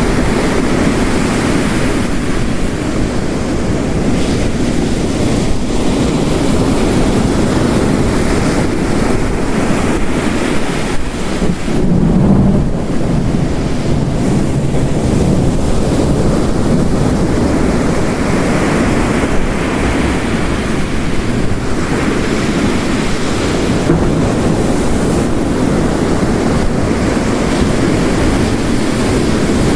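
Storm ambience of heavy rain layered with ocean waves breaking on a coast, a dense, steady wash of noise. A deeper, louder surge swells up about twelve seconds in.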